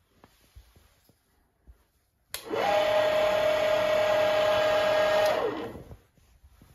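Fusan FB2 (Emco) milling machine's single-phase motor and geared head switched on with a click, spinning up with a rising whine and running steadily for about three seconds. It is then switched off and winds down over about half a second.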